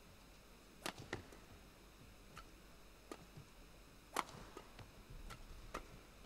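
Badminton rally: a series of sharp clicks as rackets strike the shuttlecock back and forth, mixed with footfalls on the court, the loudest hits about a second in and about four seconds in.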